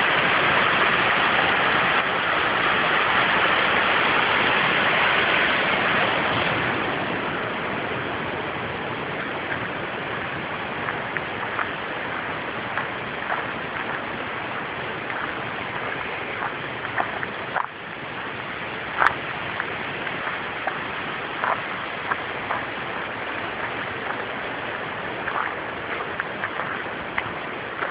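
Rushing water of a small woodland waterfall, a steady noisy rush that drops in level about six or seven seconds in. A quieter rush then continues, with scattered light crackles.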